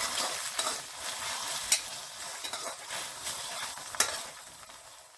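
Chopped onions and ginger-garlic paste sizzling in hot oil in a metal kadhai while a steel spoon stirs and scrapes them around the pan, with two sharper clicks of the spoon along the way. The sizzle dies down towards the end.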